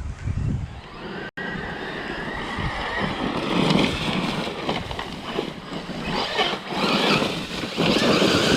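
Battery-electric RC side-by-side UTV driving hard: the motor whines and the tyres rush over the ground, the sound rising and falling with the throttle. There is a brief break in the sound a little over a second in.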